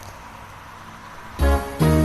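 Faint hiss, then the karaoke backing track's instrumental intro comes in about one and a half seconds in with two quick chords, guitar-like, over a steady bass.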